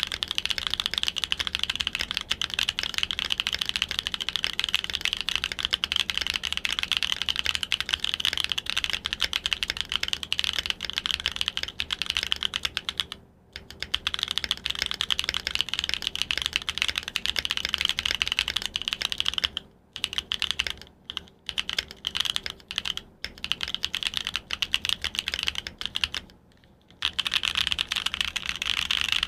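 Continuous typing on a Mode Envoy prototype mechanical keyboard with a POM plate, Obscura switches and PBT keycaps: a dense run of keystrokes. It breaks off briefly about 13 seconds in, around 20 seconds, and again about 27 seconds in.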